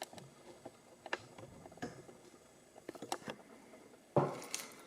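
Scattered light clicks and taps of small objects being handled at a workbench, with a louder scraping rustle starting about four seconds in.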